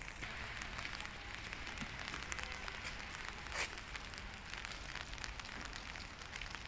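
Steady rain falling outdoors: an even hiss of rain with a few faint drop taps scattered through it.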